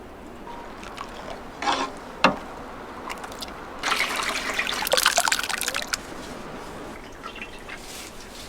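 Liquid pouring and trickling, loudest for about two seconds in the middle, with a sharp knock shortly before it.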